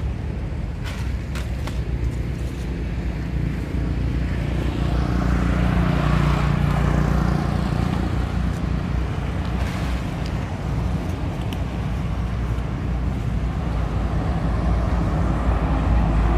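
Road vehicles passing on a nearby road: engine and tyre noise swells up and fades about six seconds in, and again near the end as a van drives by, over a steady low rumble.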